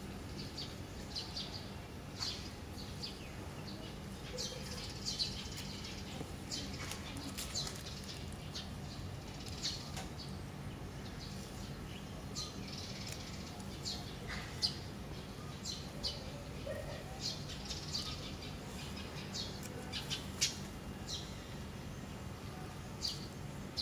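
Small birds chirping, with many short high chirps scattered throughout, over a faint steady low hum.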